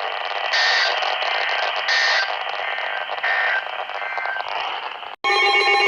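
Weather-radio static hiss with three short two-tone data bursts about a second and a half apart: the EAS end-of-message code closing the warning broadcast. Near the end the audio cuts out for an instant, and a steady chord of several tones begins.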